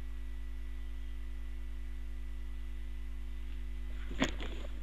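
Steady electrical mains hum from the recording chain, with a faint high whine over it. A single sharp click comes near the end, followed by a little rustling.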